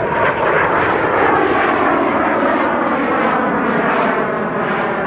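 BAC Strikemaster's Rolls-Royce Viper turbojet flying a low display pass: a loud, steady jet roar with a whine that falls in pitch as the aircraft goes by.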